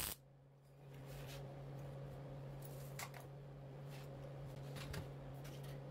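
Quiet workshop room tone: a steady low hum, with a couple of faint ticks.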